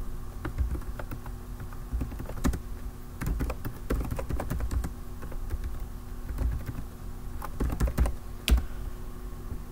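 Typing on a computer keyboard: an irregular run of key clicks, with one louder key strike near the end.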